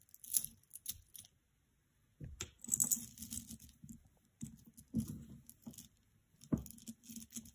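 Jewelry being handled on a cloth-covered table: a metal chain necklace and pendant clinking and rustling, with a soft knock about six and a half seconds in.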